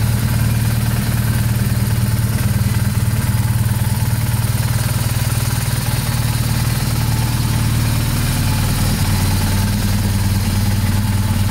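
BMW R1200GS Adventure's boxer twin engine idling steadily, with no revving.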